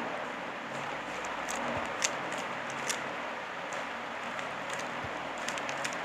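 Plastic clicks of a Rubik's cube being twisted during a solve, scattered irregular snaps over a steady background hiss.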